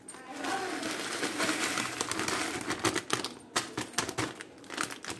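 A foil Lay's crisp packet crinkling and rustling as chips are shaken out of it into a bowl of seasoned flour, with sharp crackles in the second half.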